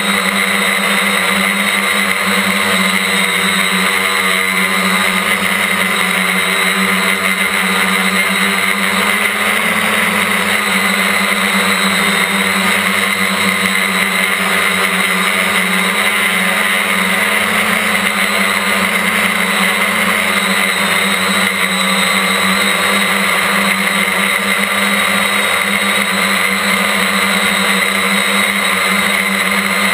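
Quadcopter's electric motors and propellers running steadily in flight: a loud, even buzz with a steady whine over it, heard close up from a camera mounted on the frame.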